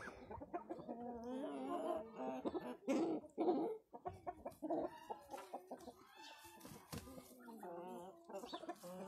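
A flock of light Brahma chickens clucking and calling, many short wavering calls overlapping, loudest about three seconds in.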